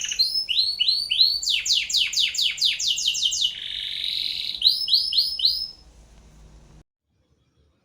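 Songbird singing a fast, varied song of high, repeated downward-sweeping notes and trills, cutting off suddenly near the end.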